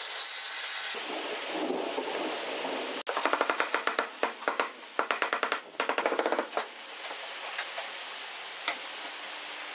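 Wooden mallet tapping rapidly on a pine board, driving the glued board down into its groove. About three seconds in come four quick runs of sharp knocks, each several taps long, over steady background hiss.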